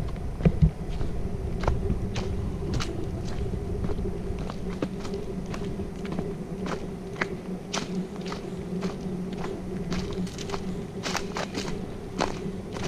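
Footsteps of a hiker walking, about two sharp crunching steps a second, over a steady low hum.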